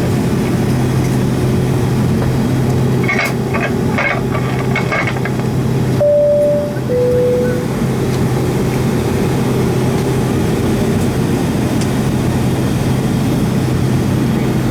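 Steady cabin noise inside a Boeing 757 on the ground after landing: engine and air-system rumble with a constant low hum. About six seconds in, the cabin PA sounds a two-note high-low chime once.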